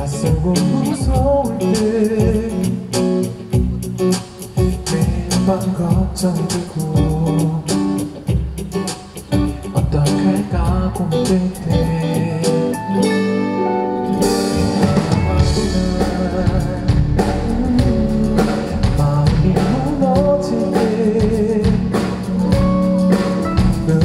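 Live pop-rock band playing: drum kit, guitar and bass under a male lead vocal. The cymbals and drums thin out briefly a little past halfway, then the full band comes back in.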